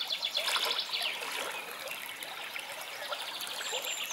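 Water trickling and flowing steadily, with fine rapid rippling on top.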